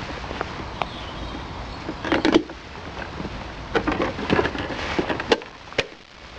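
Lid being worked off a holed plastic water container: a few clusters of sharp clicks and knocks from handling the container and lid, over a steady low rumbling noise.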